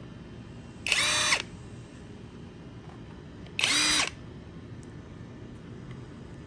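Cordless brushless impact wrench given two short trigger pulls with nothing on the anvil. Its motor whirs up quickly and spins free for about half a second each time, once about a second in and again near the middle.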